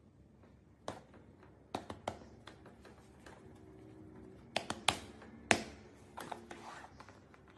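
A few sharp taps and knocks from hands tapping against a wooden drawer and patting a cat lying in it: a single tap about a second in, a quick run of three near two seconds, and the loudest cluster around five seconds.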